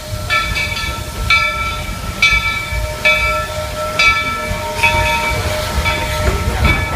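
Steam locomotive bell ringing about once a second, each stroke ringing on and fading, over the low rumble of the Walt Disney World Railroad steam engine No. 3, the Roger E. Broggie.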